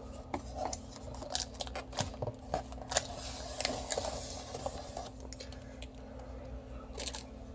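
A cardboard box of firework shells being opened and handled: scattered sharp clicks and scraping rustles, thickest a few seconds in.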